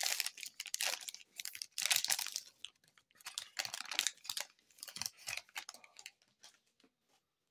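Crinkling and tearing of a foil trading-card pack wrapper as the pack is ripped open by hand, in irregular crackly bursts that stop about a second before the end.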